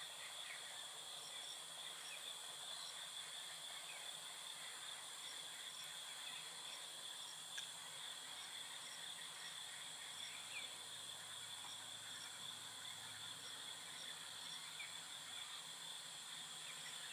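Steady evening insect chorus: crickets trilling on a constant high pitch, with faint short chirps repeating every half second or so above it.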